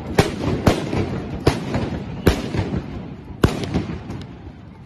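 A rapid series of sharp explosive bangs, about five loud ones in four seconds with fainter ones between. The loudest comes about three and a half seconds in, and the bangs die down near the end.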